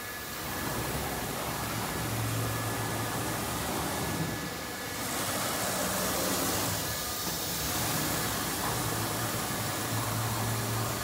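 A 4-axis CNC router running through its program without cutting anything. It makes a steady mechanical noise with a faint high whine, and a low hum swells about two seconds in and again near the end.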